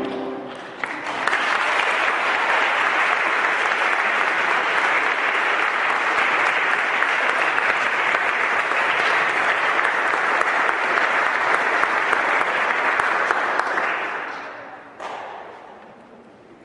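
The last musical chord dies away, then the audience applauds: the clapping starts about a second in, holds steady, and fades out near the end, with one short knock just after it dies down.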